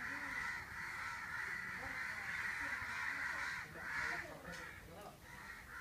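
Many crows cawing at once, their calls overlapping into a steady din.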